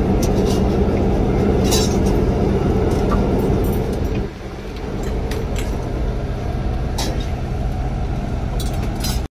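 Helicopter engine and rotor drone heard from inside the cabin: a loud, steady hum with a low fixed tone, dipping briefly about four seconds in. A few light clicks of spoons on plates and bowls sound over it.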